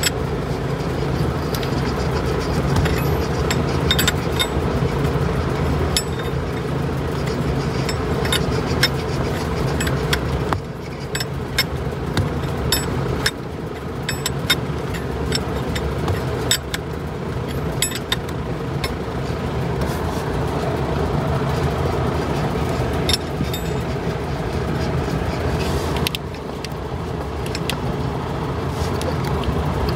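A steady low mechanical hum, with scattered light clicks and knocks as coolant hoses and fittings are handled around an engine's air compressor. The hum drops a little in level twice, about ten and thirteen seconds in.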